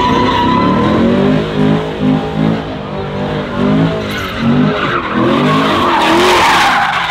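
Car engine revving hard up and down while its tyres spin and squeal, as in a burnout. The tyre screech swells to its loudest near the end.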